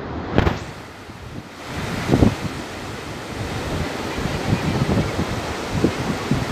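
Sea surf washing onto a beach, its hiss swelling about one and a half seconds in, with gusts of wind buffeting the microphone in low thumps.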